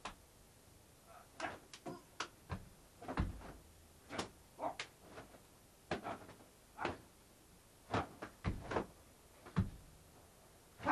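Sharp hits and thuds of a staged hand-to-hand fight, coming irregularly about once or twice a second.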